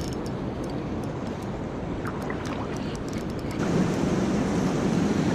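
Steady rush of river water below a dam spillway, with wind on the microphone; a few light ticks in the middle, and the rush grows a little louder near the end.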